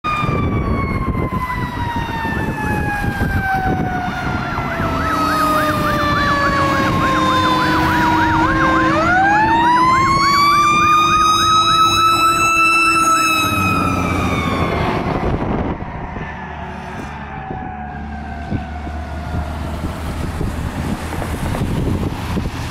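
2003 KME fire engine running its sirens: a mechanical siren's wail glides slowly down in pitch, then winds back up to a high pitch about nine seconds in, with an electronic siren's fast yelp warbling over it. A little past the middle it drops off and fades as the truck moves away.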